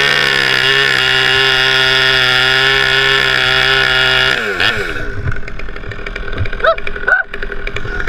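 Chainsaw revved up to full throttle, held at a steady high speed for about four seconds, then let drop back toward idle.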